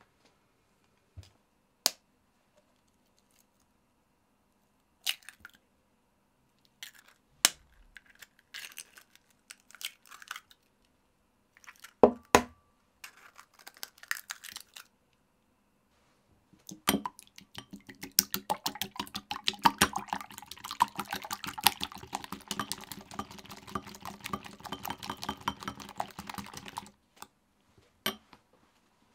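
Eggs being cracked into a glass bowl: a few sharp cracks with shell crunching and liquid dropping in the first half. Then about ten seconds of fast whisking, a silicone whisk beating eggs in the glass bowl with a rapid clicking and a faint ringing from the bowl, stopping suddenly, followed by a single tap near the end.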